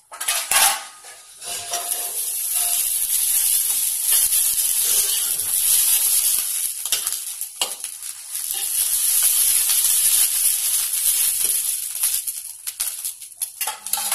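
Eggplant slices sizzling steadily in hot oil in an iron kadhai. A few sharp scrapes of a spatula against the pan come as the slices are turned.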